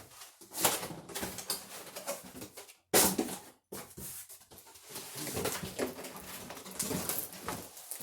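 Cardboard box and packing being handled and rummaged through, with irregular rustling and knocks and one sharp hit about three seconds in.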